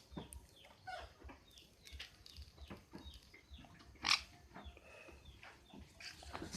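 Nuri parrot (lory) giving a series of short, downward-sliding calls, with one louder, harsher burst about four seconds in.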